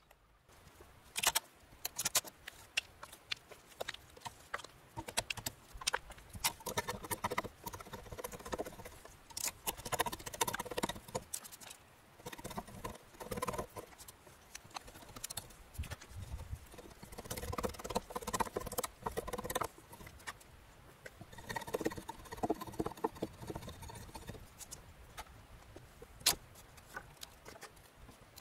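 A framing chisel paring and chopping a notch into a peeled spruce pole: an irregular run of wooden knocks and scrapes, coming in short spells of work.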